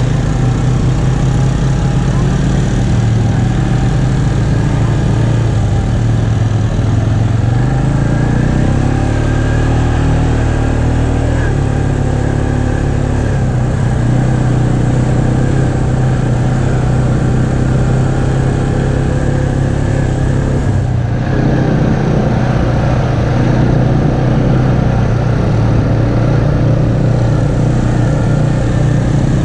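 ATV engine running while riding along a dirt trail, its pitch rising and falling with the throttle, over a steady rush of wind and tyre noise. The sound dips briefly about two-thirds of the way through.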